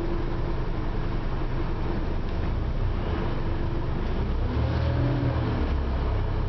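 Scania OmniCity single-deck bus heard from inside the passenger saloon while under way: diesel engine and drivetrain running with a steady low rumble of road noise. About halfway through, the engine note briefly rises and falls.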